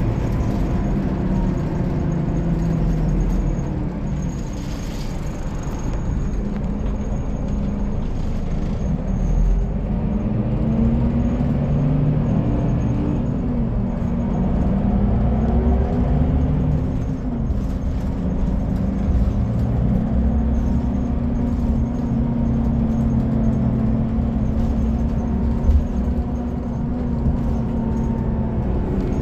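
Scania K360IB bus's DC13 six-cylinder diesel running under way, its revs climbing and dropping back several times through the Opticruise gearbox. A single sharp knock comes near the end.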